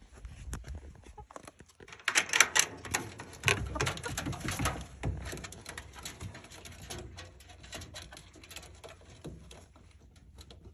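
Chickens moving about in a wood-and-wire chicken tractor: a rapid patter of sharp taps from pecking and claws on wood and wire, busiest from about two to five seconds in and thinning out after. A few soft bird calls come in among the taps.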